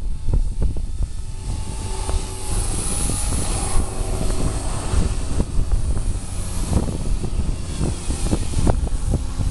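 Small electric radio-controlled helicopter (4F200) lifting off and climbing, its motor and rotor whine shifting in pitch with the throttle, under heavy wind buffeting the microphone.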